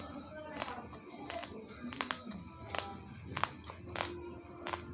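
Raw basmati rice grains being chewed: sharp, irregular crunching cracks, about one or two a second.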